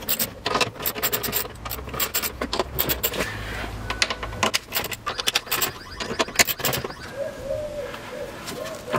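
Metal hand tools clicking and clinking against screws as engine-bay trim fasteners are undone, in quick irregular runs. From about seven seconds in, a pigeon cooing.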